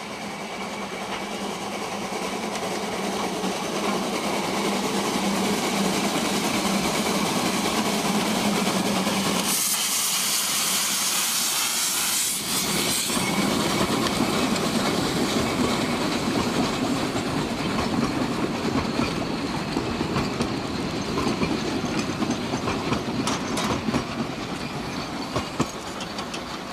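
Narrow-gauge steam locomotive working past with its train, a steady hiss of steam and exhaust swelling as it nears, with a loud rush of steam for about three seconds near the middle. Toward the end the carriages roll by with sharp wheel clicks over the rail joints.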